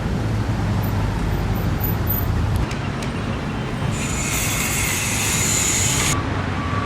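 Road traffic on a busy street: a vehicle's low engine hum fades out about two and a half seconds in. About four seconds in, a high-pitched squeal runs for about two seconds and cuts off suddenly.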